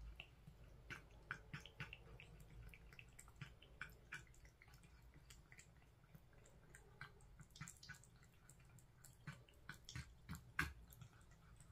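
A cat eating soft food: faint, irregular wet clicks of chewing and licking, a few a second.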